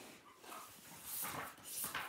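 Faint rustling and handling noise as a hardcover picture book is opened and set down on a bedspread, heard as a few short, airy swishes.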